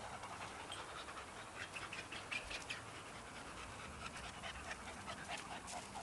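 A pit bull puppy panting faintly, in short quick breaths.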